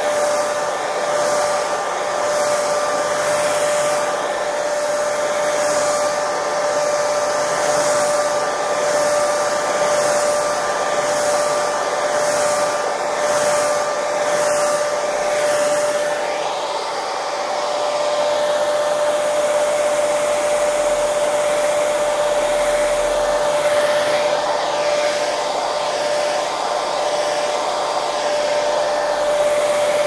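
Hair dryer running continuously: a steady rush of blown air with a constant motor whine. The airflow sound shifts slightly about halfway through.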